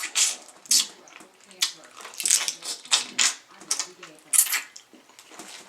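Close-up eating sounds from crab legs in seafood-boil sauce: about a dozen short, irregular chewing and smacking noises.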